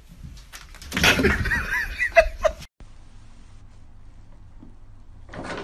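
A person laughing: a run of short, high-pitched giggles starting about a second in and lasting about a second and a half. It then cuts off abruptly, leaving only a faint, steady low hum.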